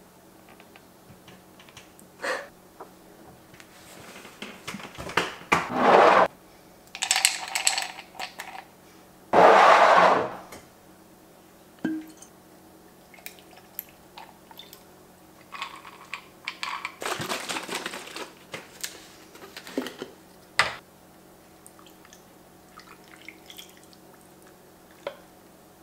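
Tabletop handling sounds of a pan, a glass bottle and a glass of ice: separate knocks and clinks, with several short rushes of noise, the loudest about ten seconds in, over a faint room hum.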